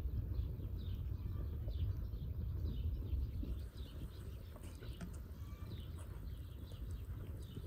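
Wood fire burning in an open hearth: a low steady rush with a few sharp crackles. Small birds chirp repeatedly over it. The rush drops somewhat about halfway through.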